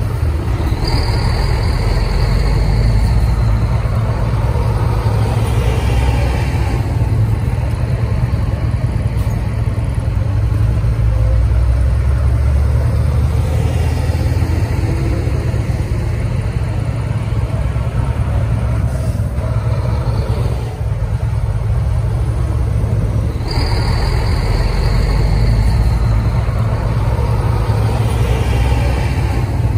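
A convoy of coach buses driving past one after another, their diesel engines giving a steady low rumble. Twice a faint high whine slowly falls away, about a second in and again about three-quarters of the way through.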